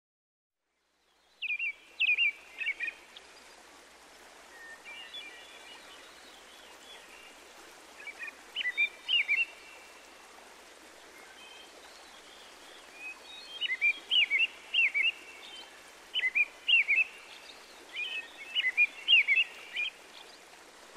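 Mute swan cygnets peeping: bouts of short, high chirps, several notes at a time, recurring every few seconds over a faint steady hiss, starting about a second and a half in.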